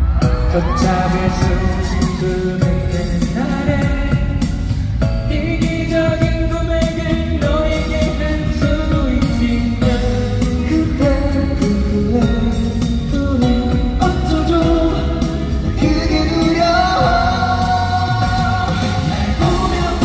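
Male singer singing a pop song live into a microphone over backing music with a steady drum beat, amplified through a PA in a large hall.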